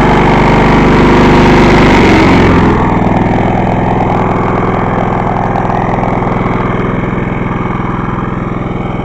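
Vintage Craftsman walk-behind lawn mower's small engine running again after years of sitting. It runs steadily, then drops to a lower, quieter speed about two and a half seconds in and keeps running evenly.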